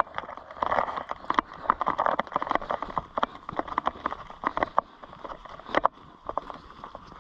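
Footsteps crunching over rough ground as people walk, a quick, irregular run of steps.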